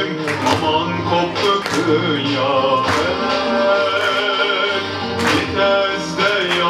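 Music: a song with a singing voice over instrumental accompaniment and occasional drum hits, played for a stage dance.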